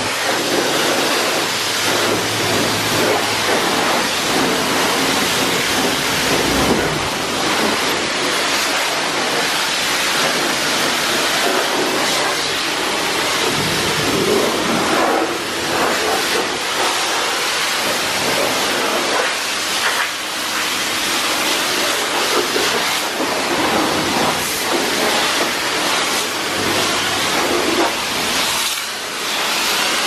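Car wash pressure wand spraying a steady, loud jet of water onto a car's body panels and windows, a continuous hiss.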